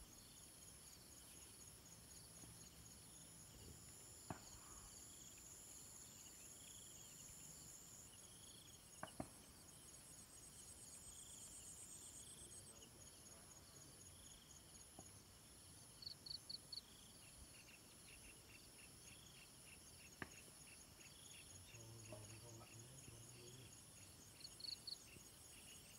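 Faint, steady chirring of evening insects in several high-pitched pulsing tones, with two brief runs of quick chirps, one around the middle and one near the end, and a few soft isolated clicks.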